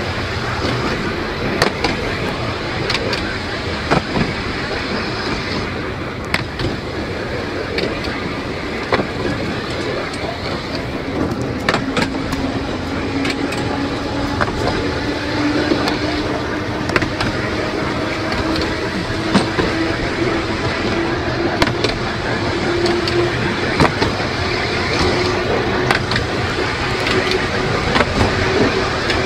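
Small electric tramcar on 2 ft 9 in narrow-gauge track, heard from its open top deck: a steady rumble of the wheels with irregular clicks and knocks over the rail joints, and from about halfway through a motor whine that rises slowly in pitch as the tram gathers speed.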